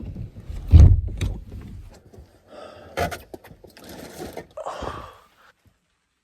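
Handling noise: a loud low thump about a second in, then several short bursts of rustling or scraping, stopping about a second before the end.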